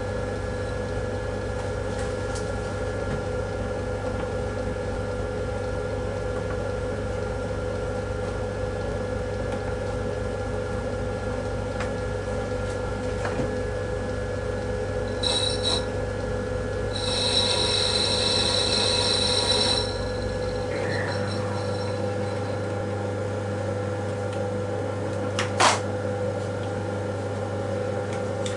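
Myford lathe running steadily under power while taking light cuts on the stock, with a steady motor hum. A high, hissing cutting noise comes in briefly, then again for about three seconds, and a single sharp click sounds near the end.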